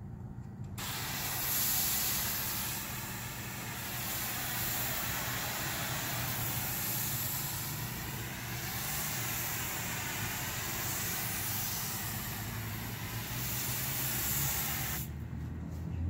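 Low-pressure softwash spray hissing from a hose nozzle onto a stucco wall. It starts about a second in and cuts off near the end, over a low steady rumble.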